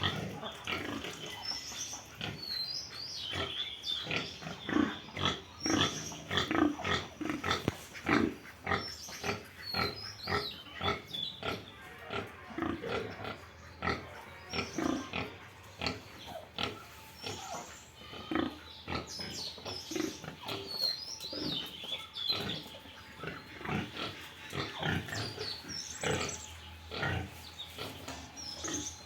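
Pigs grunting over and over, many short grunts close together, with short high squeals mixed in.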